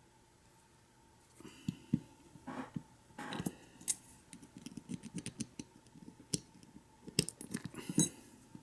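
Small metal clicks and scrapes from a Master Lock Pro Series 6327 padlock cylinder being reassembled by hand as its retaining clip is fitted back on. The clicks start about a second and a half in and go on irregularly, loudest about two seconds in and near the end.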